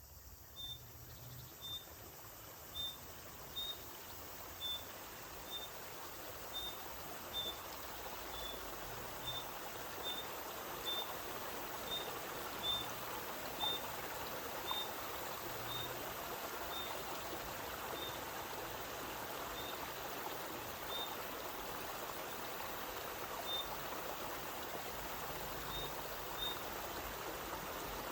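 Spring water flowing steadily out of a mountainside, growing slightly louder over the first several seconds. A bird gives a short high single-note call about once a second, the calls thinning out in the last third.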